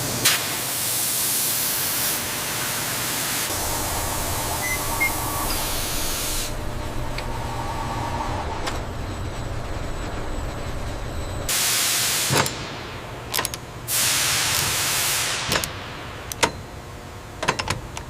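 Long bursts of loud hissing, with several sharp clicks in between.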